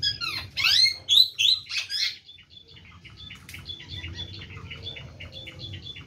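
Parakeets calling: a burst of loud, rapid, harsh chirps for about the first two seconds, then a run of quieter short chirps, about four a second.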